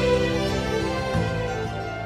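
Orchestral background music with held notes; the low notes change a little over a second in.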